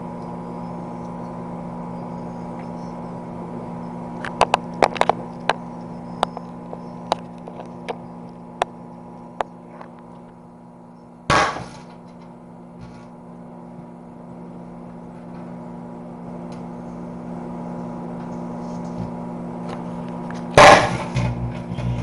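Microwave oven humming steadily with two light bulbs inside. A run of sharp snaps starts about four seconds in, then one bulb bursts with a loud pop about eleven seconds in, and the second bursts with a louder bang near the end, followed by crackling as flames start inside the oven.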